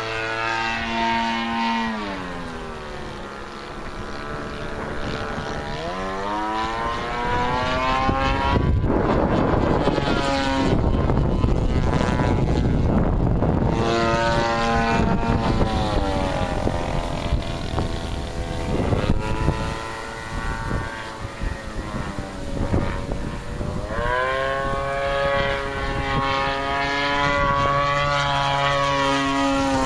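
Gas-powered radio-controlled float plane's engine and propeller buzzing in flight, the pitch repeatedly falling and rising as it flies past and changes throttle.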